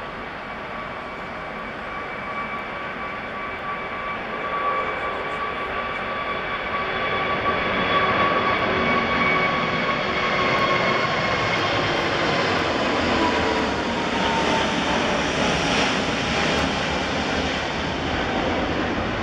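Jet noise from a Qantas Airbus A380's four Rolls-Royce Trent 900 turbofans at takeoff power as it climbs out. The sound grows louder over the first eight seconds, and a high engine whine falls in pitch as the aircraft passes overhead.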